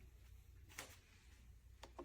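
Near silence: room tone with a faint click a little under a second in and another small click near the end.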